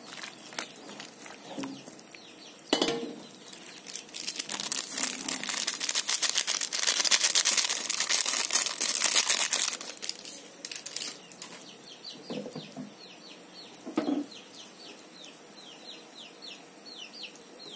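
A metal spoon knocks once in the soup pot, then a plastic seasoning sachet rustles and crinkles for several seconds as powdered stock is shaken into the soup. In the second half, a string of short, high, falling peeps repeats a few times a second, typical of chicks.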